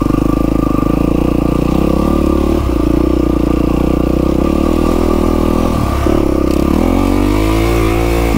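Yamaha WR450F's single-cylinder four-stroke engine running steadily under way. The revs ease off briefly twice, then dip and climb again near the end.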